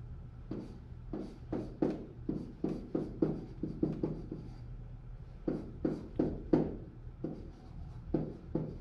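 Pen writing on an interactive whiteboard: a run of quick taps and scratches as letters are written, about three strokes a second, with a pause about halfway through.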